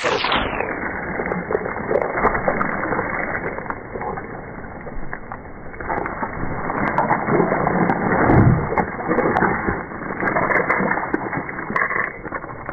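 Hiking boots squelching and sucking through deep mud, step after step, sounding muffled.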